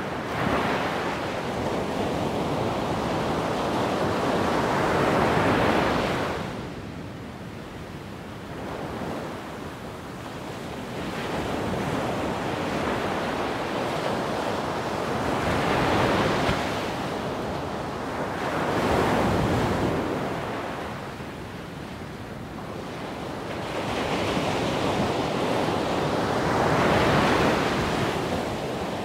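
Wind blowing in gusts, a rushing noise that swells and dies away several times.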